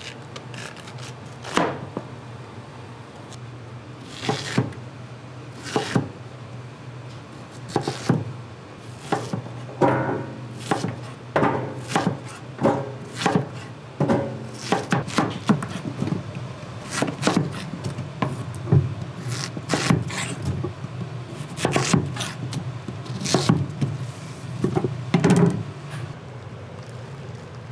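Knife chopping on a wooden cutting board in irregular strokes, sparse at first and then coming quicker from about a third of the way in, some strokes ringing briefly. A low steady hum runs underneath.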